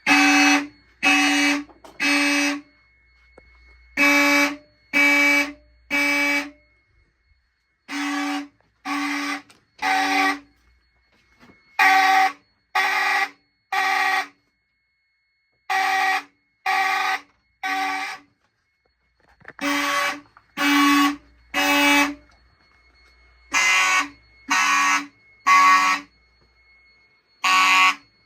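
Fire alarm sounders sounding the temporal code-3 evacuation pattern: three half-second tones, a pause, repeating about every four seconds. The alarm was set off by a test of a newly installed conventional smoke detector. A faint steady high tone runs underneath.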